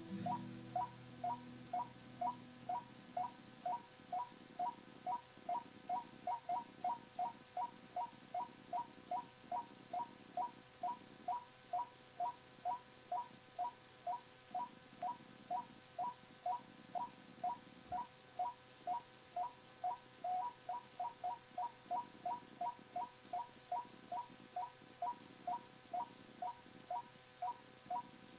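White-breasted waterhen (chim quốc) calling, one short note repeated steadily about two to three times a second. Played from an old cassette recording with tape hiss and a faint hum underneath.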